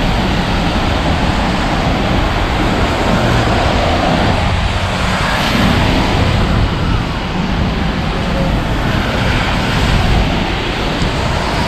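Loud, steady city street noise of passing traffic, with a heavy low rumble throughout.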